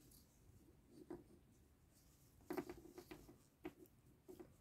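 Near silence with a few faint rustles and light scratches of yarn and a metal crochet hook being worked by hand, once about a second in and in a small cluster from about two and a half seconds on.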